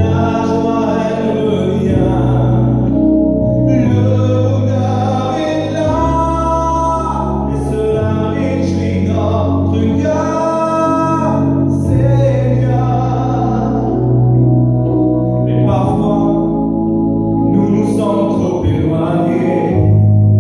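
A man singing a French Christian hymn over instrumental backing music, whose held bass notes change about every two seconds.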